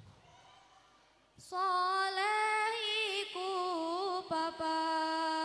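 A girl's solo voice singing into a microphone, unaccompanied, in the ornamented, wavering melismatic style of a sholawat. It comes in after about a second and a half of quiet and settles on a long held note near the end.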